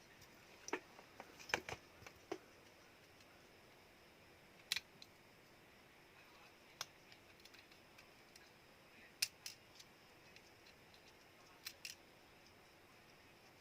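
Scattered small, sharp clicks and taps, about ten in all and irregularly spaced, from tools and plastic parts being handled while a Samsung Galaxy A02s smartphone is taken apart.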